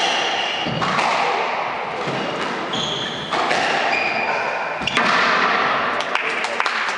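Squash rally: the ball cracking off rackets and thudding against the court walls, with rubber-soled shoes squeaking in short high chirps on the wooden floor.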